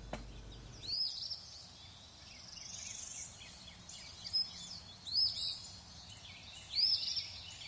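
Small birds chirping: clusters of short, high, arched call notes about a second in, around four and five seconds, and near the end, with a faint buzzy trill around three seconds.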